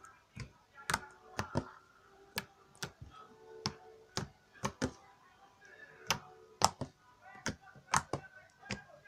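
Sticky, glossy slime being squeezed, pressed and slapped by hand, making sharp, irregular clicks and pops, about two or three a second.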